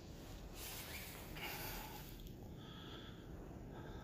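Quiet room tone with faint breathing close to the microphone.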